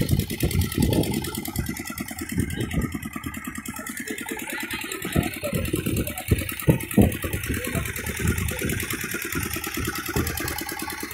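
A fishing boat's engine running steadily with a fast, even pulse, under uneven low rumbling that is loudest near the start and again about halfway through.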